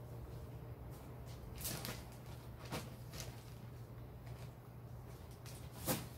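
A low steady hum with a few sharp clicks or snaps over it; the loudest snap comes near the end.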